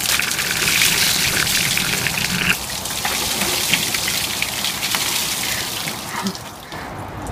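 A bucket of ice water poured over a man's head, gushing and splashing onto him and the ground. It is loudest in the first couple of seconds and eases off over about six seconds.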